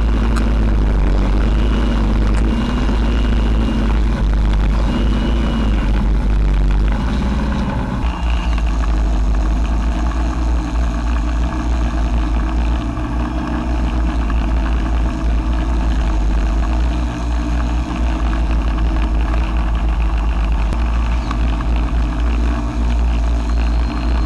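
Quadcopter's electric motors and propellers humming steadily, heard from a camera mounted on the drone, with wind rumbling on the microphone. The hum's pitch shifts about eight seconds in.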